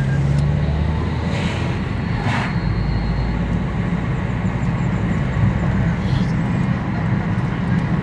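Car driving along a street, heard from inside the cabin: a steady low engine and road rumble, with a brief engine hum at the start and two short hissy swells about two seconds in.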